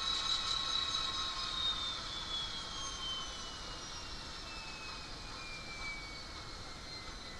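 Simulated EMD diesel locomotive sound from the Soundtraxx Econami decoder in an N scale Bachmann GP40, played through the model's small speaker. A high whine glides steadily down in pitch while the overall sound slowly fades.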